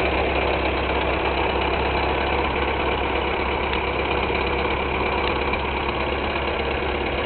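1909 Hupmobile Model 20's four-cylinder engine running steadily at an even speed.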